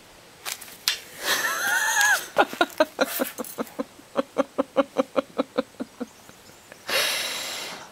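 A woman making wordless vocal noises close to the microphone: a wavering high cry, then a rapid run of short voiced pulses about four or five a second, then a long breathy hiss near the end.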